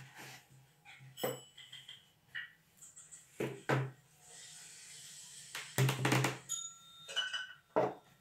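A series of dull knocks and thumps on a floured wooden tabletop as dough is worked. The loudest cluster comes about six seconds in, and a soft hiss runs for a second or so before it.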